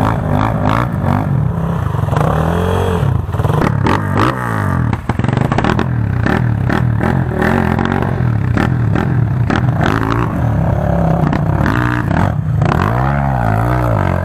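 Enduro dirt bike engine revving hard under load as the rear wheel spins in mud, its pitch climbing and dropping again and again with the throttle.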